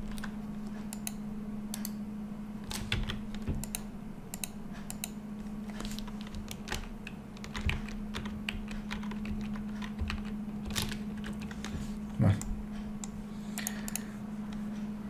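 Computer keyboard keys and mouse buttons being pressed, scattered single clicks and taps with uneven gaps, over a steady low hum.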